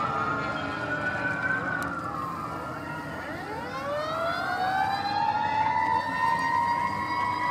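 Several emergency vehicle sirens wailing at once, their pitches overlapping as they rise and fall. About halfway through, another siren winds up from low to high and holds there.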